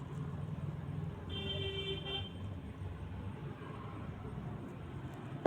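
Steady low traffic rumble with a short vehicle horn toot about a second in, and one sharp click at the very end.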